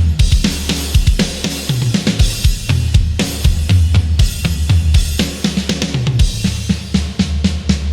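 Sampled rock drum kit from the EZdrummer 3 Hard Rock EZX library playing a groove, with kick, snare and cymbals, over a low bass part that moves between notes.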